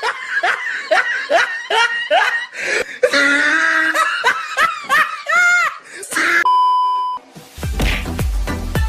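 Hearty laughter in quick repeated bursts, each rising in pitch, for about six seconds. It is followed by a steady electronic beep of under a second, and then upbeat dance music with a heavy beat that starts about seven and a half seconds in.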